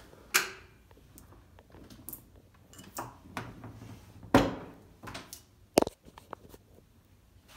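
Scattered knocks, clicks and brushing sounds of handling around a wooden bathroom door and a glass shower door in a small tiled bathroom. The loudest knocks come about half a second in and about four and a half seconds in, with a sharp click near six seconds.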